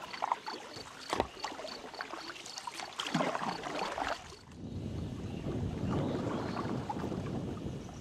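Canoe-style paddle strokes splashing and knocking beside a small inflatable boat, with a faint high ticking about three times a second. About halfway through this gives way to a steady low rushing noise.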